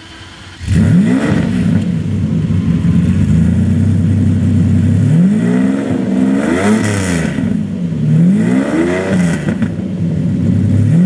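Lamborghini Diablo VT's V12, through a modified aftermarket exhaust, fires up about a second in with a short flare of revs and settles to a steady idle. It is then revved twice, each rev rising and falling in pitch. It is really loud.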